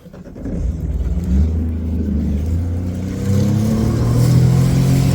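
Jet ski engine coming up to speed, a steady low hum that rises in pitch and gets louder about three seconds in as it is throttled up.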